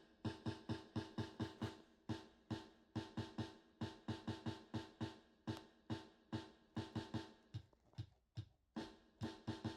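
Instrumental rap beat: fast, even drum-machine hits over steady synth tones, with a short break about eight seconds in.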